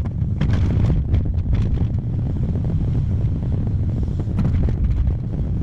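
Volvo 220 excavator's diesel engine working under load while the bucket digs into shale rock, with a few sharp scrapes or knocks of the bucket on the rock; wind buffets the microphone.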